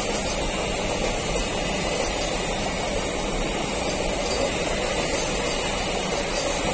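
Container freight train running through, its flat wagons loaded with shipping containers: a steady noise of steel wheels running on the rails and the wagons going by, with no let-up.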